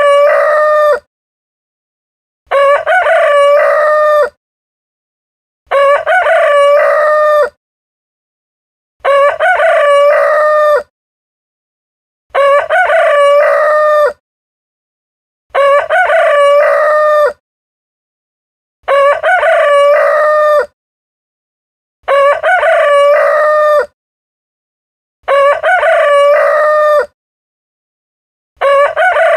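Rooster crowing over and over, each crow nearly two seconds long and alike, repeating about every three seconds with dead silence in between.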